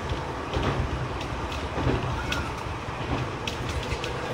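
Nankai Koya Line electric train running at speed, heard from just behind the cab: a steady rumble of wheels on rail with irregular sharp clicks and ticks.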